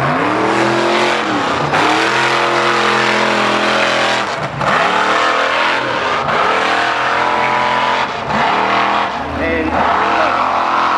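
Mega mud truck engine revving hard in repeated surges, its pitch climbing and dropping every two seconds or so as the truck powers over the humps and through the mud pit.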